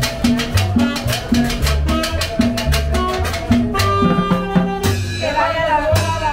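A live street combo playing Latin dance music in the salsa style: a steady drum and cymbal beat over an upright-bass line. A melody line comes in over the beat about four seconds in.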